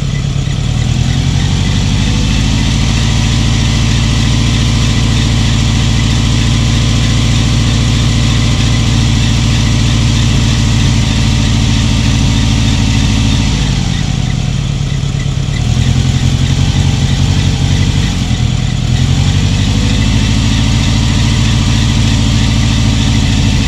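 Dodge Ram pickup's engine running at idle with the hood open. Its speed dips and picks up again twice in the second half.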